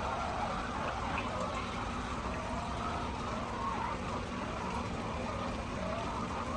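A flock of hens calling softly over a steady low mechanical hum.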